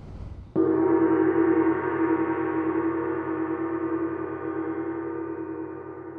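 A deep gong-like tone struck once about half a second in, ringing on with many overtones that waver in loudness as it slowly fades.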